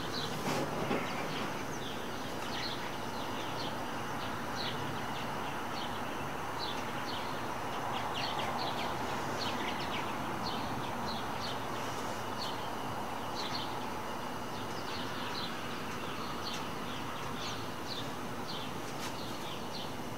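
Outdoor ambience: many short, high chirps from small birds, scattered irregularly over a steady background hiss.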